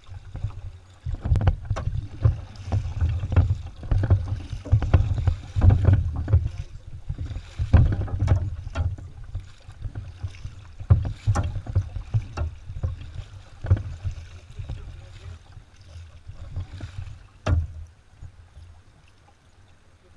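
Kayak being paddled: paddle strokes in the water with sharp knocks and taps against the hull and camera mount, over an uneven low rumble.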